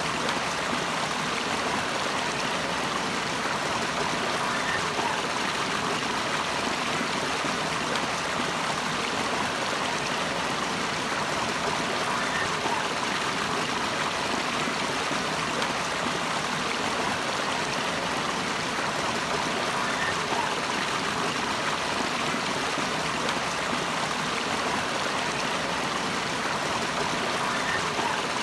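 Running water in a mountain stream or small fall, a steady, even rush that never changes.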